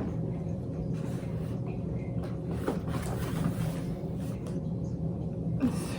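Steady low mechanical hum, with a few faint clicks and rustles over it.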